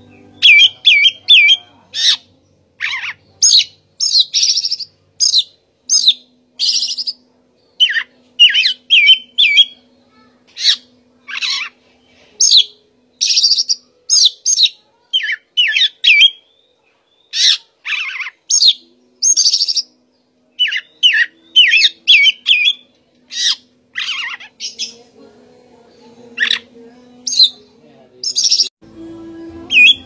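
Oriental magpie-robin singing: a fast, varied run of loud whistles, warbles and quick repeated notes, phrase after phrase with brief pauses.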